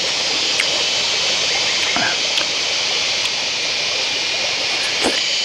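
Steady rushing of a forest stream flowing close by, with a few short clicks and crunches of someone eating leafy boiled greens.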